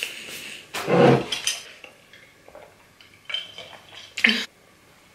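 A few separate clinks and knocks of tableware being handled on a table, the loudest about a second in, as a glass mason-jar drinking mug is picked up.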